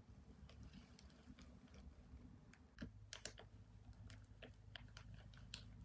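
Near silence: faint scattered small clicks and rustles of a fabric mushroom hat being handled and settled on the head, over a faint low room hum.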